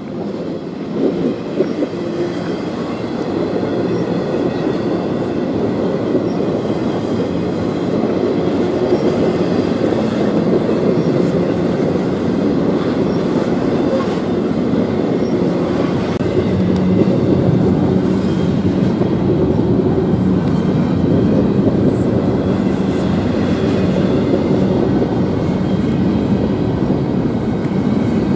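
Intermodal freight cars loaded with truck trailers rolling past close by: a steady rumble of steel wheels on rail with scattered faint clicks, building up over the first few seconds and then holding level.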